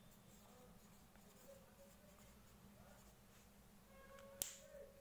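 Faint writing sounds, a pen or marker scratching as a word is written out, with a single sharp click near the end.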